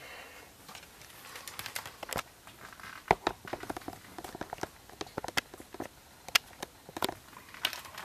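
Scattered light clicks and rustles of handling as a plastic AC power adapter is pushed into a plug-in wall-socket power meter and its cable is moved about.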